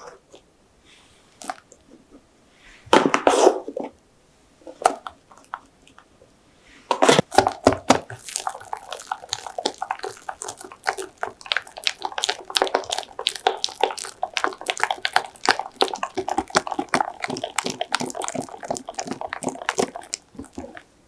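A wire whisk beating egg yolks and meringue in a glass bowl, its wires clicking rapidly against the glass; the whisking starts about seven seconds in and stops just before the end. Earlier, about three seconds in, a short wet scraping sound as meringue is scooped from its cup into the bowl.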